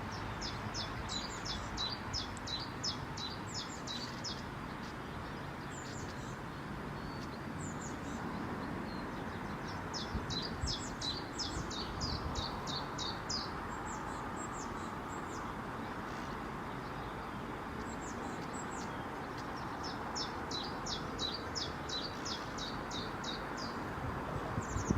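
A songbird singing fast trills of repeated high, downward-sweeping chirps, about four or five notes a second, in three bouts roughly ten seconds apart, over a steady background hiss.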